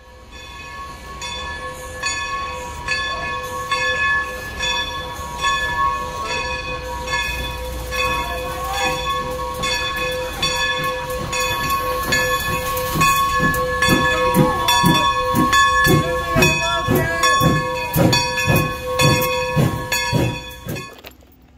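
Steam locomotive starting out: a ringing stroke repeats about once a second over a steady tone and hiss, and about two thirds of the way in, low exhaust chuffs come in about twice a second. The sound drops away abruptly near the end.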